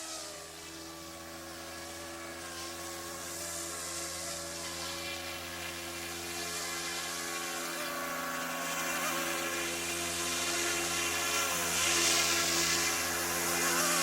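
Yuxiang F09 Black Hawk RC helicopter's electric motor and rotors whining in flight, the pitch wavering as the throttle changes and the sound slowly growing louder.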